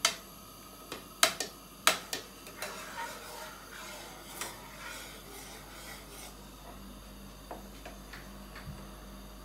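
A metal ladle stirring milk in an enamelled pot. It knocks sharply against the pot a few times in the first two seconds, then scrapes around the bottom in steady strokes. The milk is being stirred with yogurt to curdle it for paneer.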